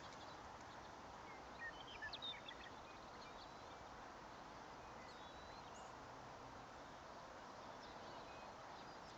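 Near silence: a faint steady outdoor hiss, with a few faint short high chirps about two seconds in and again around six seconds.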